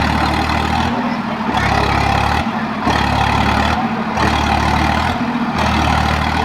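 Heavy vehicle's diesel engine running loud, its note dipping and coming back in a regular cycle about every one and a half seconds.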